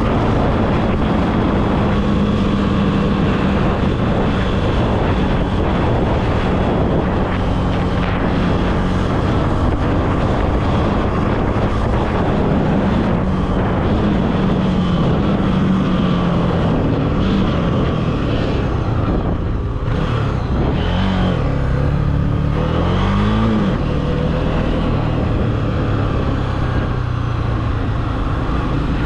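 Honda CB300F's single-cylinder engine running under way, holding a steady pitch for the first half, then dropping and rising again a few times past the middle as the revs ease off and pick back up.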